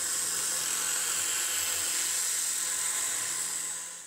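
PM-25MV CNC mill's 1 hp brushless DC spindle running a 1/2-inch end mill through 1/4-inch plywood during a pocketing cut: a steady high-pitched whir with cutting noise and a low hum underneath. It fades away near the end.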